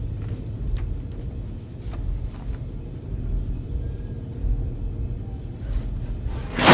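Low, steady rumbling drone from a film soundtrack, with a few faint clicks. A sudden loud rush of noise breaks in right at the end.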